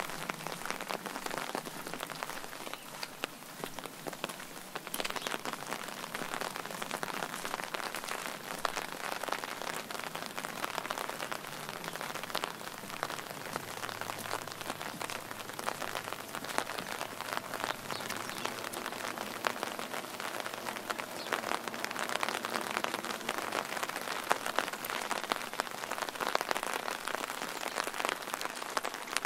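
Steady rain falling, heard as a constant hiss thick with small, close drop taps.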